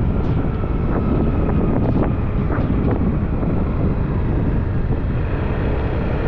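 Wind buffeting the microphone of a moving Yamaha Aerox 155 scooter, with the scooter's single-cylinder engine running steadily underneath.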